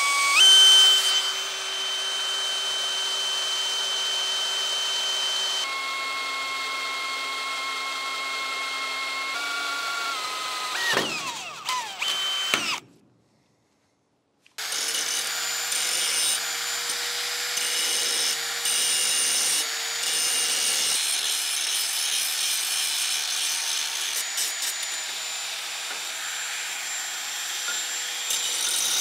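A DeWalt cordless drill boring holes through steel, its motor whine steady, then dropping in pitch twice and winding down about twelve seconds in. After a second or two of silence, a corded angle grinder runs steadily against steel, grinding the edges of the pieces clean for welding.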